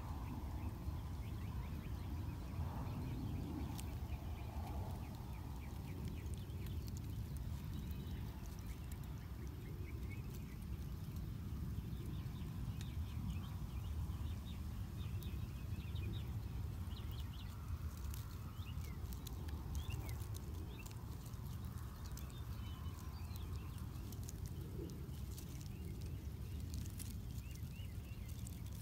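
Faint northern mockingbird song, scattered short phrases over a steady low rumble, with a few light clicks in the second half.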